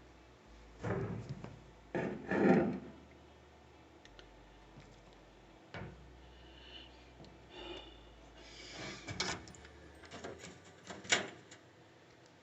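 Hands fiddling wiring into a plastic clip on a washer's lid switch assembly: irregular rubbing and rustling, loudest a couple of seconds in, with a few sharp clicks later on.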